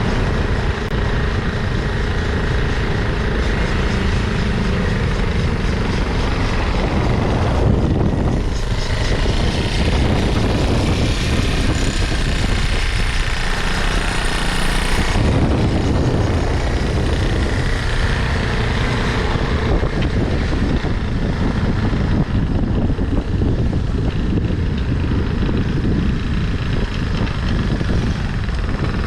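Freshly restored Honda CB 125 Deluxe motorcycle's engine running steadily, its sound growing higher and busier for several seconds around the middle before settling again.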